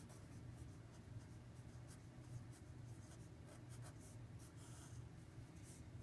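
Marker pen writing on paper: faint, scattered scratchy strokes over a low steady hum.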